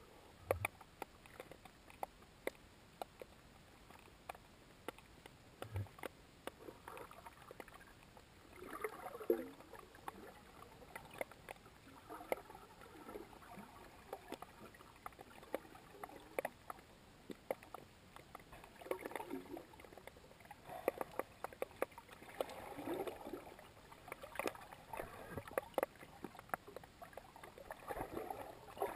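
Underwater ambience heard through a fixed camera: scattered sharp clicks and crackles, with a few short gurgling surges of water now and then.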